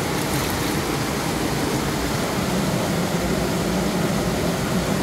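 Steady rush of a small waterfall cascading over river rocks.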